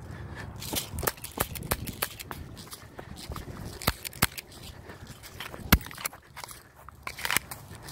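Airsoft HK USP pistol firing several shots, each a sharp snap: a quick run of them in the first two seconds, then a few more spaced out, the loudest about six seconds in. Footsteps on dry grass go on between the shots.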